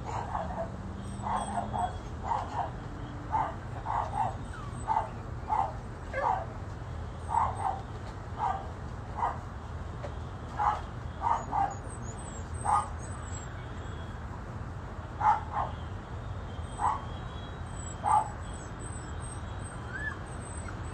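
Dog barking over and over in short, separate barks, about one or two a second, with a pause of a couple of seconds part-way through. A steady low hum runs underneath.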